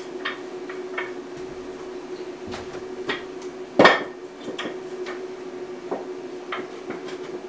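Scattered clinks and knocks of kitchenware being handled, with one loud knock about four seconds in, over a steady low hum.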